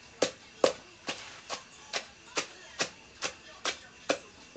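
Pestle pounding crushed rice-field crabs into a paste in a clay mortar: about ten strokes, a little over two a second, stopping near the end.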